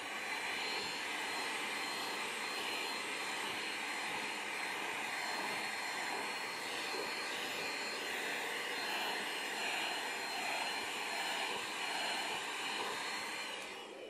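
Vacuum cleaner running steadily with a high motor whine, its nozzle held to a cat's coat to suck up loose fur. Near the end it is switched off and the whine falls away.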